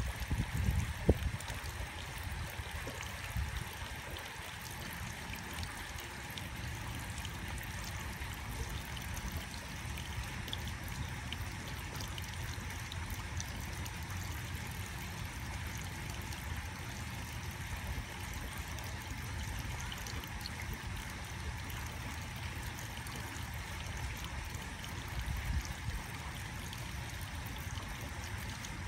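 Water trickling steadily from the open end of a garden hose, with a few short knocks in the first second or so.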